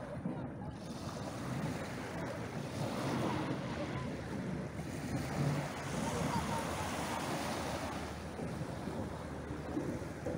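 Small waves breaking and washing up a pebble beach, the surf swelling and easing as each wave comes in.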